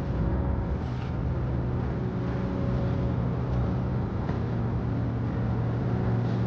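Steady low rumble of a vehicle, with faint held tones above it.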